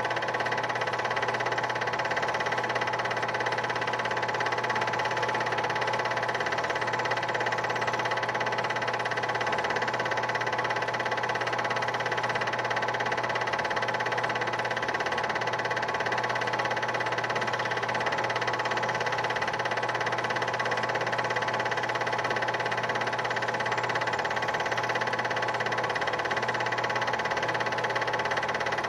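Film projector motor and mechanism running at a steady speed, a constant whirring drone made of several fixed tones that does not change at all.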